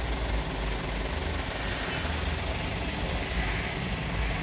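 Vehicle engine idling steadily with a low rumble.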